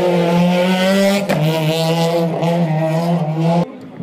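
Peugeot 106 rally car's engine held at high revs as it drifts through a hairpin, with a brief break in the note about a second in. The engine sound cuts off suddenly near the end.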